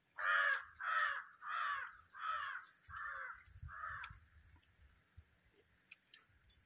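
A crow cawing six times in a quick, even series, about one and a half calls a second, the calls growing fainter toward the end.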